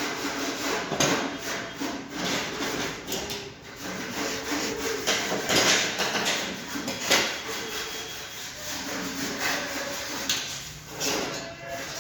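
Hand work on a water cooler's body: irregular scraping and rubbing strokes mixed with knocks.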